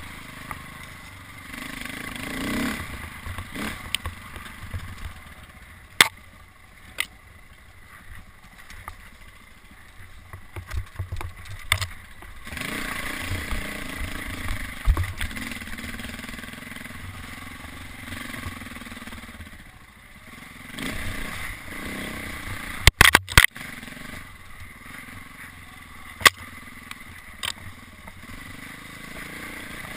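Dirt bike engine running on rough single track, its pitch and loudness rising and falling as the throttle opens and closes. Several sharp knocks break in, the loudest a quick cluster of knocks past the middle.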